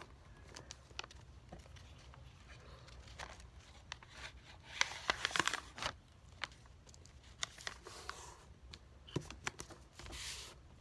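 Paper rustling and crinkling as a sheet is folded and pressed down by hand, with scattered light taps and a busier flurry of rustling about five seconds in.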